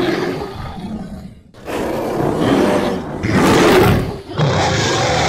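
Cave bear creature sound effect: deep, rough roars one after another. One roar fades out and stops about a second and a half in, then fresh roars follow back to back, the loudest around three to four seconds in.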